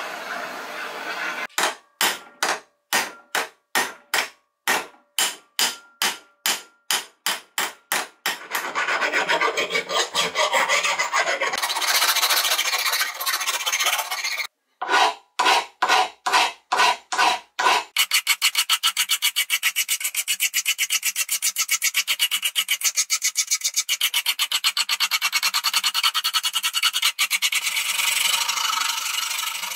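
Hand strokes of an abrasive rubbing on the steel of a rusty wrench, as the rust is worked off. The strokes come at about two a second, give way to a steady rubbing, return briefly, then run on in a quicker, even rhythm for the second half.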